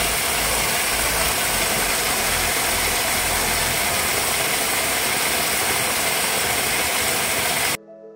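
Waterfall close up: thin streams of water pouring over mossy rock and splashing into a pool, a loud steady rush. Near the end it cuts off abruptly to soft piano-like music.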